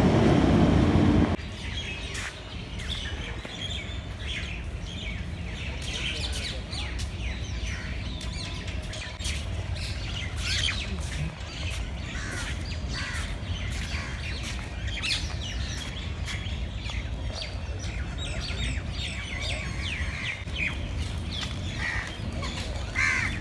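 Many small birds chirping and calling in trees, a busy chorus of short chirps over a low steady rumble. A louder sound cuts off about a second in.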